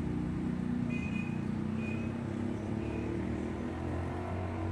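A motor vehicle's engine running steadily, a low, even rumble.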